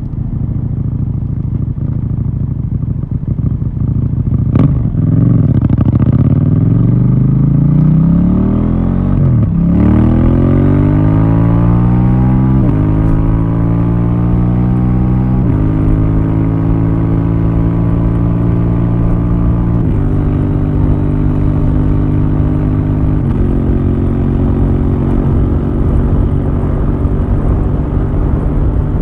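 KTM 790 Duke's parallel-twin engine through its stock exhaust, revs rising and falling with a couple of sharp clicks. About a third of the way in it pulls hard and accelerates through the gears, with the engine note rising and then dropping at each of about four upshifts.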